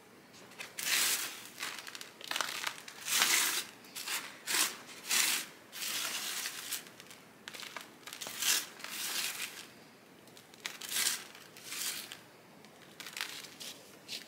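Hands scooping and working potting mix into a pot around a plant's roots: an irregular string of short rustling, crinkling scrapes, some about a second long.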